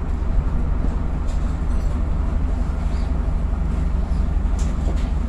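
Bristol VR double-decker bus's rear-mounted diesel engine running steadily, a deep rumble heard from inside the lower deck, with a few faint rattles near the end.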